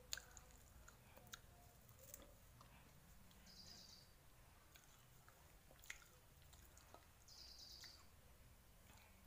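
Near silence: faint room tone with a few soft clicks and two short bursts of high bird chirping, a few seconds apart.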